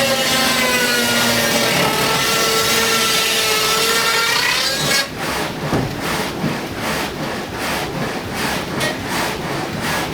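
Water-powered sawmill's saw cutting wood: a loud rasping with a ringing whine for about five seconds, then it changes suddenly to a rhythmic stroke about twice a second.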